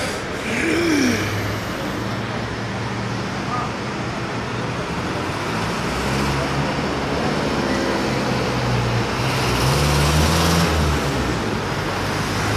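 Steady street traffic noise with a motor vehicle engine running, its pitch shifting and growing louder about ten seconds in.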